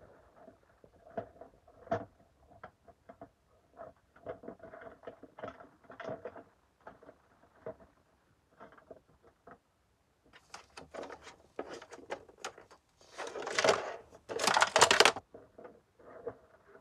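Plastic toy pieces clicking and knocking as a child handles a plastic treehouse playset and its small figures, scattered at first and quicker later. About three-quarters of the way through come two louder rushes of noise, each about a second long.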